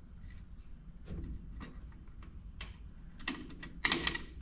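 Light clicks and handling noises from small parts and tools, with a brief, louder rattling burst near the end.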